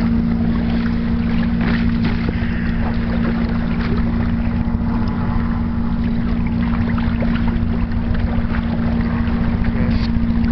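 Wind buffeting the microphone and water washing past a Hobie Tandem Island sailing kayak in choppy water, over a steady low hum.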